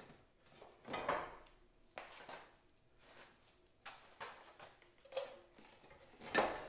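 Clunks and scrapes of a heavy 302cc small engine being handled and shifted on a steel mini bike frame: a handful of separate short knocks.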